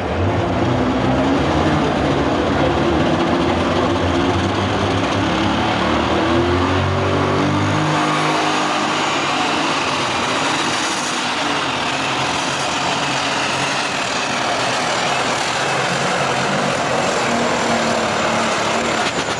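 John Deere 4250 super stock pulling tractor's turbocharged diesel engine running flat out under load as it drags the weight sled down the track. The engine note climbs in pitch over the first several seconds, and its low rumble thins out about eight seconds in.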